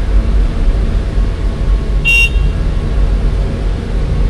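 Excavator's diesel engine running steadily with a low rumble, heard from inside the cab, with one short high-pitched horn beep about two seconds in.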